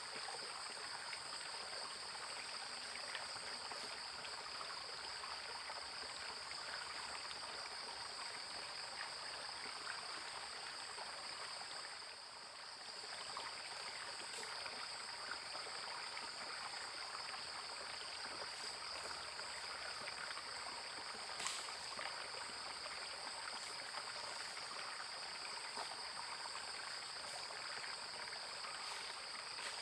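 Floodwater running and trickling, with a steady high-pitched insect chorus over it. A faint click comes about two-thirds of the way through.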